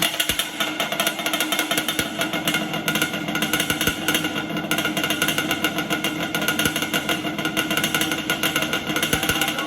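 Yamaha Banshee's twin-cylinder two-stroke engine running steadily with a rapid, buzzing pulse, cutting in suddenly at full level.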